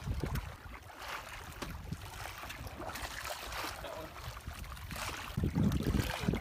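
Seawater lapping and sloshing against the hull of a small bamboo outrigger boat, with scattered light knocks. The water gets louder and closer about five seconds in, splashing right beside the hull.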